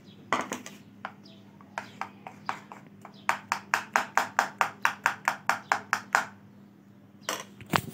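Metal spoon stirring and beating besan batter in a bowl, clinking against the bowl in sharp strokes. The strokes are scattered at first, then come in a quick regular run of about five a second for about three seconds in the middle, with a couple more near the end. This is baking soda being mixed into the dahi bade batter.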